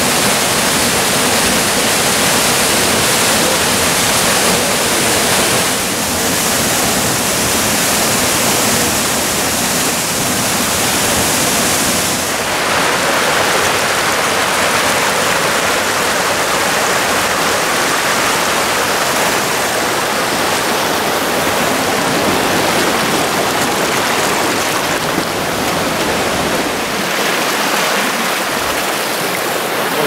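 Waterfall plunging into a rock pool, a loud steady rush of water. About twelve seconds in, the sound changes suddenly to the rushing of a shallow, rocky creek.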